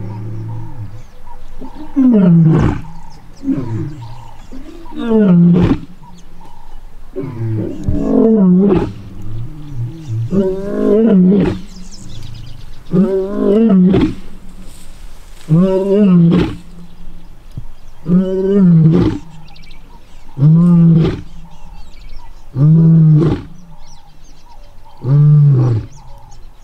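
Male lion roaring: a long bout of a dozen or more deep calls. The early calls are longer and run together; the later ones are shorter grunting roars at a steady pace of about one every two to three seconds.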